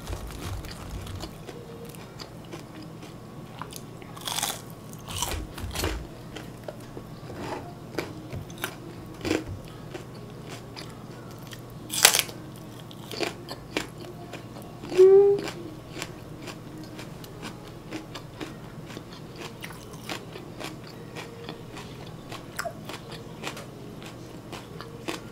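Close-up eating sounds: chewing of crispy fried chicken and raw green onion, with a run of sharp crunchy bites. The loudest crunch, about twelve seconds in, is a bite into a raw green onion stalk, and a brief hummed sound comes a few seconds later.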